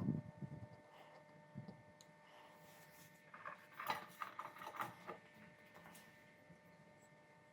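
Light handling sounds of wooden parts and hand tools on a workbench: a few soft knocks, then a run of small clicks and scrapes about three to five seconds in, over a faint steady hum.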